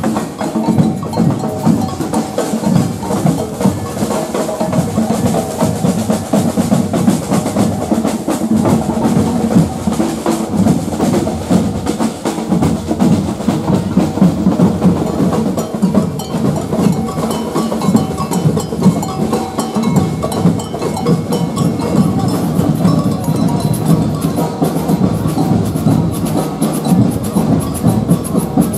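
Street percussion band playing a continuous rhythm on large bass drums and snare drums, with sharp wooden-sounding clicks among the beats.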